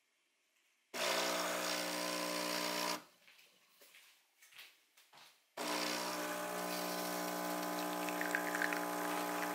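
Philips automatic espresso machine running: a steady electric buzz starts abruptly about a second in and stops after two seconds. A few small knocks and clicks follow, then the buzz starts again as the shot pours and runs on.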